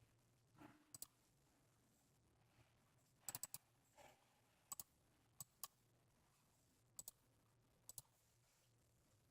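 Computer mouse buttons clicking about a dozen times, mostly in quick pairs, with a soft rustle twice between them.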